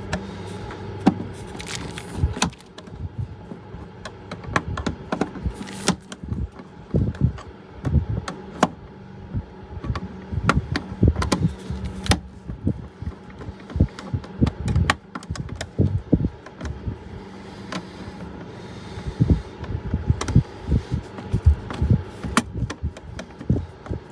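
Irregular clicks, taps and knocks of a screwdriver and wires being worked against the terminals and sheet-metal box of an RV electrical panel, over a steady low hum.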